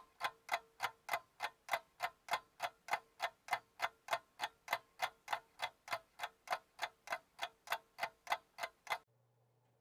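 Clock-ticking sound effect with even ticks, about three a second, cutting off abruptly about a second before the end. It stands in for the caller's spoken phone number.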